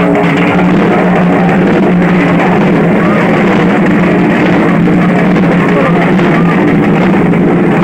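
Dhak drums, the large feather-plumed Bengali barrel drums, played together with dhols in loud, continuous drumming.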